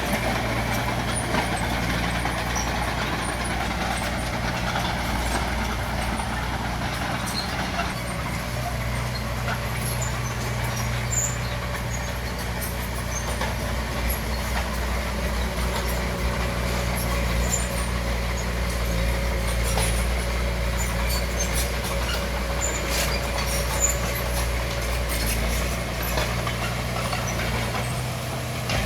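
Bulldozer's diesel engine running steadily under load, a constant low drone with scattered faint clinks on top.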